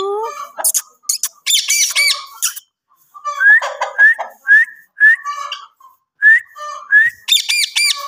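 Rose-ringed (Indian ringneck) parakeet and helmeted guineafowl calling: two bursts of rapid, harsh squawks, and between them a run of short rising chirps about twice a second.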